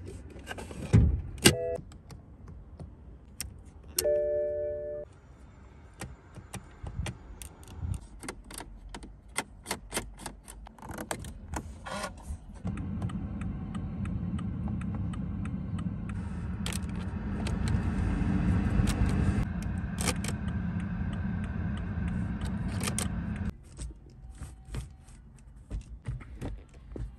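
Handling the cabin controls of a BMW 320d: a run of sharp clicks and knocks, with a short electronic chime about four seconds in. From about halfway through there is a steady low hum for about ten seconds. Near the end come more clicks as the six-speed gear lever is moved.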